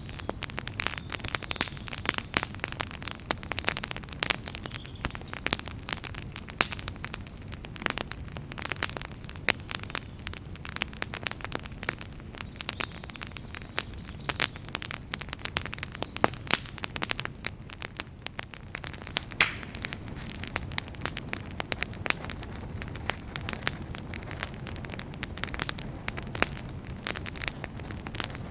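Wood fire crackling: many irregular sharp pops and snaps over a low, steady rush of flame.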